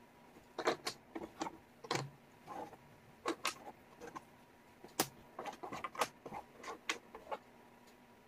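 Wooden jigsaw puzzle pieces clicking and tapping against each other and the tabletop as they are picked up, shuffled and fitted. The clicks come irregularly, some singly and some in quick runs of two or three.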